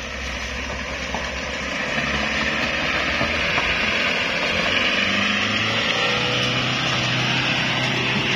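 Engine of a loaded Mitsubishi Colt L300 pickup running under load as it drives up a slippery mud track, growing louder over the first few seconds as it approaches.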